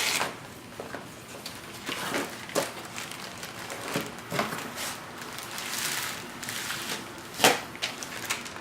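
Packaging of a new head gasket being opened and handled by hand: irregular rustling and crinkling with scattered clicks and knocks, the sharpest about seven and a half seconds in.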